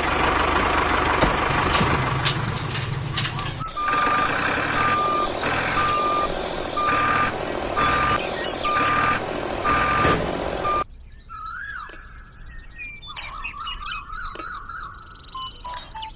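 A vehicle reversing alarm beeping about once a second over a running engine. After about eleven seconds it cuts off suddenly, and quieter warbling, chirping tones follow.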